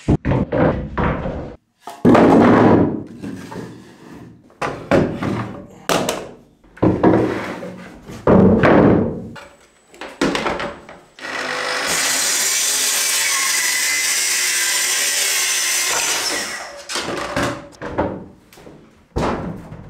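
Coated plywood sheets being handled and set down, a series of hollow wooden thunks, then a plunge-cut track saw cutting a panel in one steady run of about four seconds midway.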